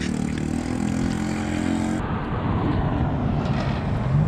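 Street traffic: a vehicle engine running steadily, then, after a cut about halfway through, road traffic rumble with a car engine starting to rev up near the end.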